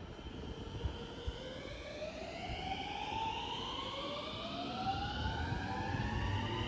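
Electric commuter train pulling away from the platform: its inverter-driven traction motors whine in several tones that rise steadily in pitch as it accelerates, over a low rumble.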